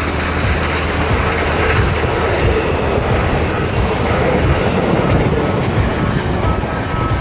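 Steam-hauled passenger train of vintage Victorian Railways carriages passing close at speed, a loud, steady rush of wheels and carriages on the track.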